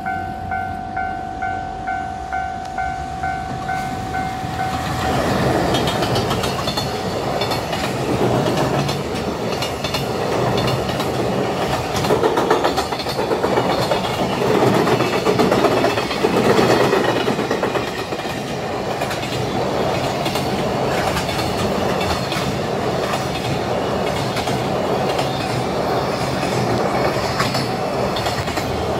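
A level-crossing warning bell dings steadily, about two strokes a second. About five seconds in, a JR Freight container train hauled by an electric locomotive passes close by, its wagon wheels rumbling and clacking over the rail joints, with the bell still faintly sounding underneath.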